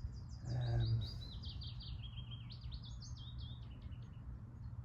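Willow warbler singing: one song of quick sweet notes cascading down the scale, lasting about four seconds.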